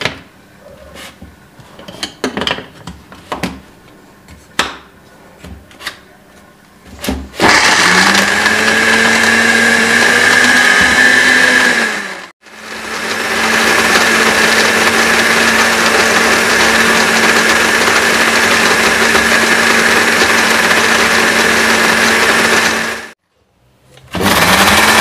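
Countertop electric blender grinding mint leaves, garlic, ginger and pomegranate seeds with very little water into a thick chutney paste. A few light clicks and knocks come first as the jar and lid are handled. Then, about seven seconds in, the motor starts, rising in pitch as it spins up, and runs in three stretches with two brief stops.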